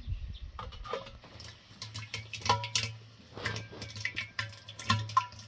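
Dishes and metal utensils clinking and knocking in a quick irregular string of strikes, several leaving a short ringing tone.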